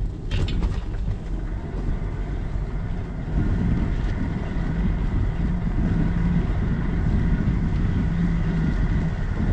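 Wind buffeting the microphone of a handlebar-mounted action camera on a moving bicycle, over the rumble of tyres on a paved path. There is a short sharp click just after the start, and a steady hum comes in and the noise gets louder about three seconds in.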